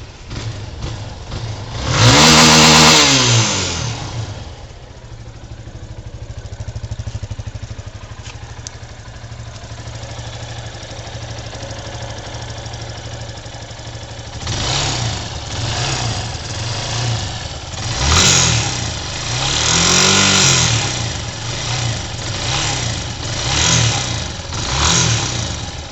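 Yamaha YS250 Fazer's single-cylinder 250 cc engine revved once, settling to a steady idle, then blipped repeatedly. It is being revved to bring out a noise that appears at higher revs, which a new cam chain tensioner has not cured.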